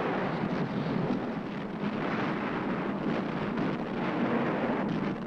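Wartime battle noise: a steady, dense rumble of explosions blurring together.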